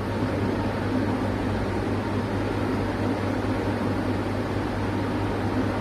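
Steady background hum with an even hiss, unbroken and unchanging.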